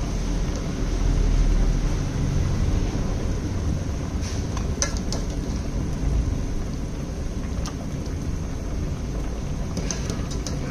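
A pot of fish and tomato soup boiling with a steady low rumble. A metal ladle clinks lightly against the pot a few times, about four seconds in and again near the end.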